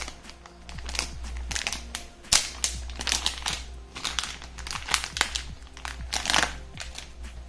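Plastic packaging crinkling and crackling in irregular bursts as a packet holding a watch strap is handled and opened, with faint background music.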